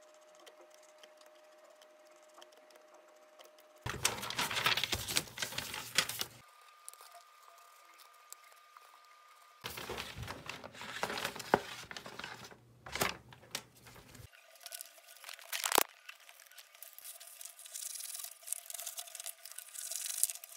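Sheets of paper rustling and crinkling as they are handled, in several bursts after a few faint seconds, with a sharp snap about three-quarters of the way through.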